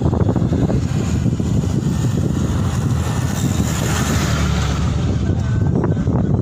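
Steady rumble of road and wind noise from inside a moving vehicle, with an oncoming truck passing close alongside about four seconds in, a hiss that swells and then fades.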